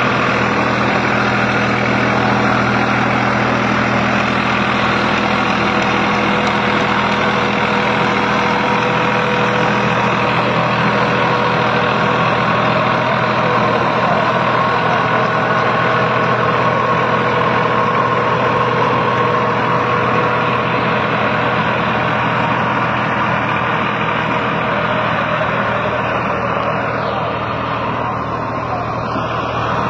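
New Holland 3600-2 tractor's diesel engine running steadily at an even speed.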